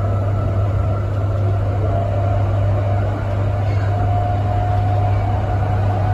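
Transperth A-series electric multiple unit heard from inside the carriage while running: a steady low hum and the rumble of wheels on track, with a faint whine that rises slightly in pitch as the train picks up speed.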